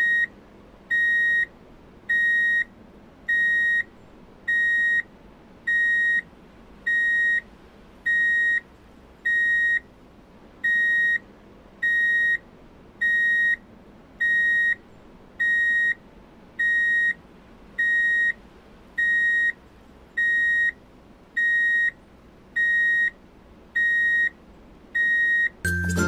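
Electronic reversing-alarm beeper: one high beep about every 0.8 seconds, evenly spaced, stopping near the end.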